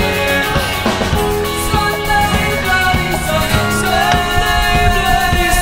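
Rock music with a steady drum beat and a singing voice, laid over the footage as a soundtrack.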